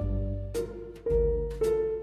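Background music: pitched notes over a low bass, with a new note struck about every half second.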